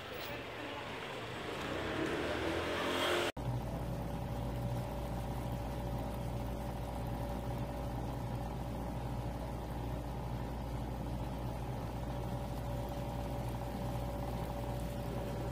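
Outdoor ambient hiss for about three seconds, then an abrupt cut to a steady, unchanging low machine hum with a few constant tones.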